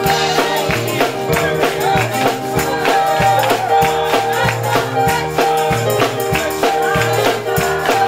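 Gospel choir singing an upbeat song with musical accompaniment and a steady beat of sharp hits, handclaps among them.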